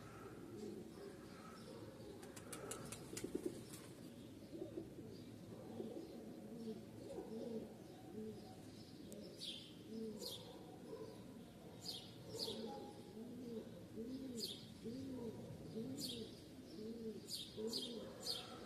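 A dove cooing in a steady series of soft low coos, about one every 0.7 seconds, while a small songbird gives short high, falling chirps in the second half. A quick run of clicks sounds a couple of seconds in.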